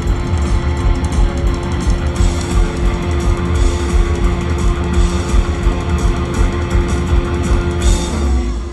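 Live rock band playing at full volume: hard-hit drums and crashing cymbals under distorted electric guitars and bass, with one low note held throughout. These are the song's last bars, heard from the crowd through a stadium PA.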